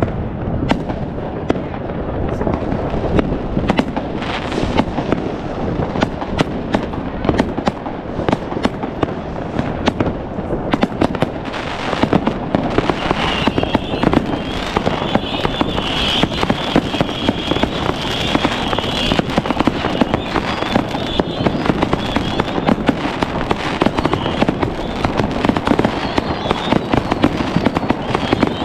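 Dense New Year's Eve consumer fireworks: rockets, firecrackers and batteries going off without a break, many overlapping bangs and crackles. A high, steady whistle from a whistling firework starts about halfway through and lasts several seconds, and more whistles slide in pitch near the end.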